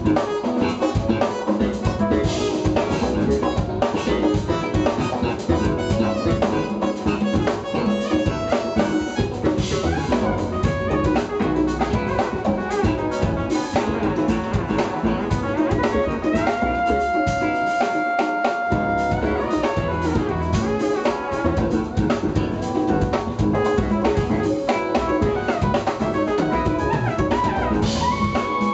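Live jazz-fusion band playing, with drum kit, electric bass and keyboards. About two-thirds of the way through, one long note is held for a few seconds while the bass drops out briefly.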